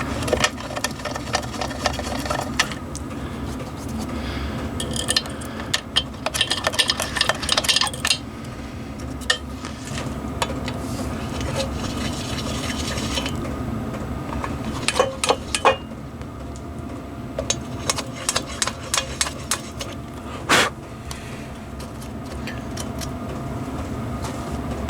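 Milling machine running steadily while it works the bolt holes of an aluminium motorcycle primary case. Scattered metallic clicks and clinks sound over it, with one sharp knock about twenty seconds in.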